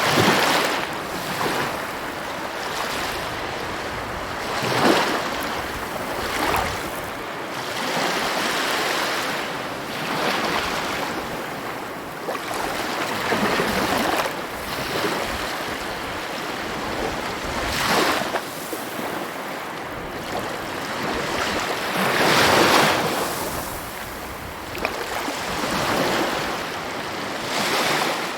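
Sea waves breaking and washing in, a continuous surf hiss that swells into a louder break every four seconds or so.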